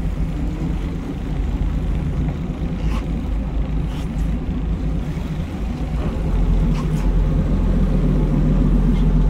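Sportfishing boat's engine running with a steady low hum, growing louder about six seconds in.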